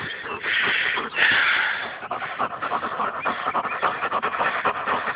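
Czechoslovakian shepherd dogs panting hard, fast and even, out of breath after running after a frisbee.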